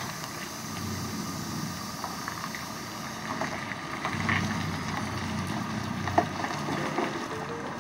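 Heavy truck's diesel engine running as it slowly hauls a low-loader trailer loaded with a tracked excavator through a turn, a low rumble that swells about halfway through, with wind on the microphone.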